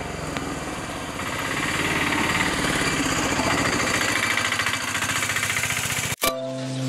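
Full-size auto-rickshaw's single-cylinder engine running with a rapid chatter as it drives up the road, growing louder about a second in. The sound cuts off suddenly near the end and a steady electronic tone begins.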